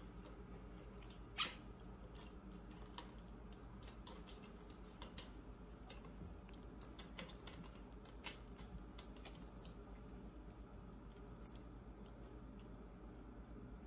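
Bengal kittens playing on a carpeted cat tree: scattered light taps and clicks, the loudest about one and a half seconds in, with faint, short, high-pitched kitten squeaks recurring. Low room hum underneath.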